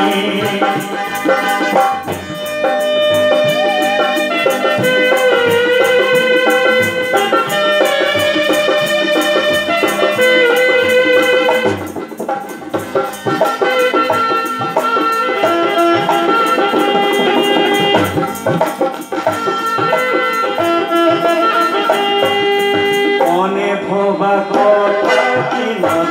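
Live band playing Bihu-style Assamese music: a bending, held melody line over a steady, regular drum beat, amplified through the stage sound system.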